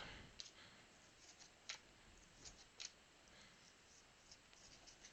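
Faint handling of trading cards: a few soft, sharp ticks and light rustles as cards are slid and flicked through one after another.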